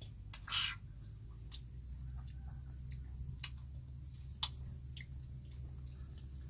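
Child eating small juicy fruit: a short slurp about half a second in, then a few scattered mouth clicks, over a steady low hum.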